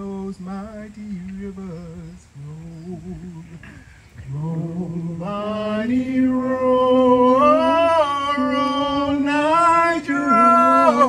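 A song leader singing a slow song unaccompanied. The first few seconds are short, softer phrases, then about four seconds in the voice swells into long, loud held notes that step upward in pitch.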